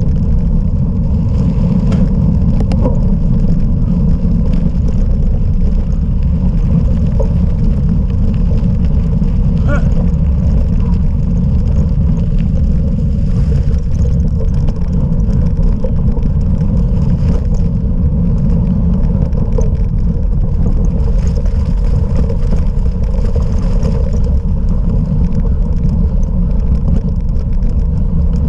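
Steady, heavy rumble of wind over the microphone of a camera riding on a cyclocross bike during the race, with the riding noise of the bike underneath.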